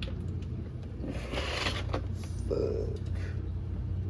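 Engine oil rushing out of the open drain plug hole of a 6.4L HEMI V8's oil pan, a short splashing burst about a second in, with some of it missing the drain pan. A steady low hum sits underneath.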